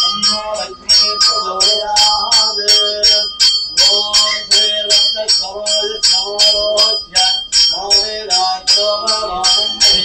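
Temple bell rung rapidly and steadily, about four strokes a second with a sustained metallic ring, over a male voice chanting.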